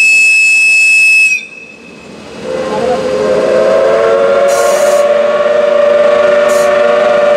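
A high steady tone cuts off about a second in; after a short lull a locomotive whistle sounds one long chord-like blast that swells in at the start as the train pulls away, with two brief hisses partway through.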